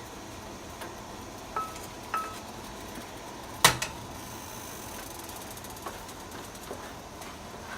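Kitchen utensil on cookware: two short, light ringing clinks, then a sharp knock a second and a half later, over a steady low hiss.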